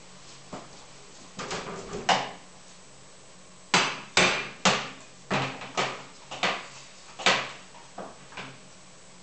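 Kitchen worktop clatter: a few small knocks, then about ten sharp knocks of utensils on the counter and cutting board, irregularly spaced around half a second apart.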